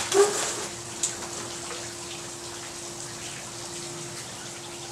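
Steady background hiss like running water, with a steady low hum under it. Just after the start comes a short scrape, then a click about a second in, as a person gets up from a patio chair.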